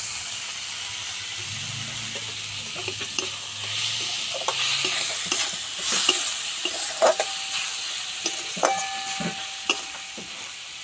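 Vegetable filling frying in oil in a metal karahi, with a steady hiss, while a metal spatula stirs and scrapes it. Scattered clicks come from the spatula striking the pan, and a couple of short metallic rings follow in the second half.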